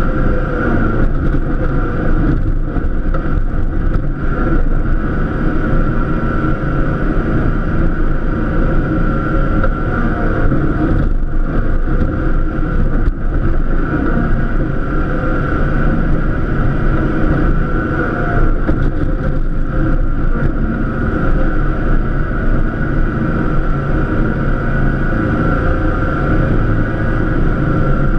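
Cub Cadet LTX1050 lawn tractor's engine running steadily under load while plowing snow. A steady high whine sits over the engine's rumble.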